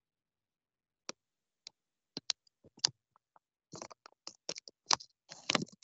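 Scattered small clicks and brief rustles picked up by a home video-call microphone, starting about a second in.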